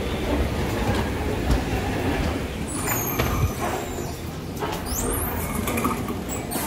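Steady low rumble of airport-terminal background noise while walking off a moving walkway into the terminal, with a few faint knocks.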